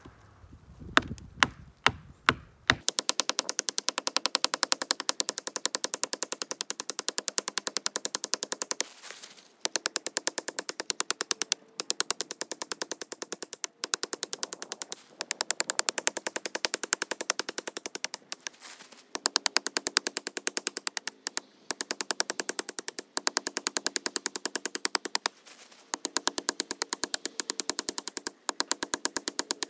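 Stone axe chopping a black walnut sapling's trunk: a few separate blows, then from about three seconds in a fast, even run of knocks, several a second, broken now and then by short pauses.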